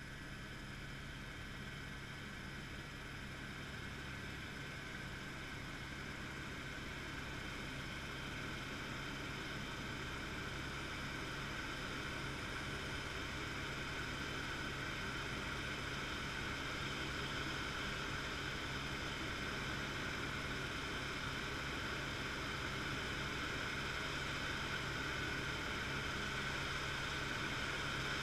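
Helicopter in flight heard from inside the cabin: a steady mix of rotor and engine noise with constant high-pitched tones over it, slowly growing louder.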